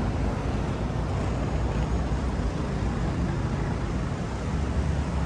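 Steady city road traffic noise from passing cars, an even din strongest in the low range, with no single event standing out.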